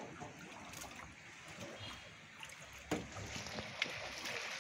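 Floodwater sloshing and trickling around someone wading slowly through it, with two sharp clicks about three and four seconds in.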